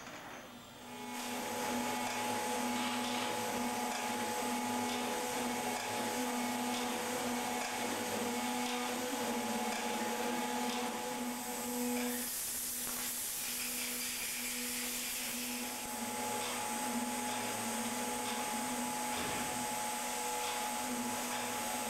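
Metalworking machines running in a factory workshop: a steady motor hum with a constant whine. A brighter hiss comes in for a few seconds about halfway through.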